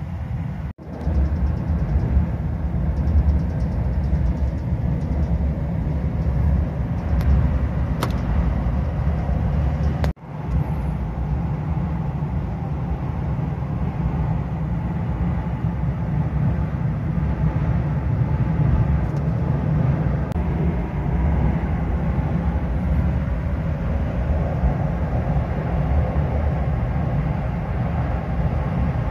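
Steady running rumble of a 285-series sleeper train crossing a steel truss bridge, heard from inside the car. The sound drops out briefly twice, about a second in and about ten seconds in.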